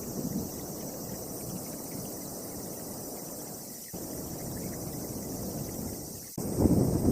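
Storm wind gusting and buffeting the microphone as a low, uneven rush. It breaks off abruptly twice, and after the second break, near the end, it comes back louder.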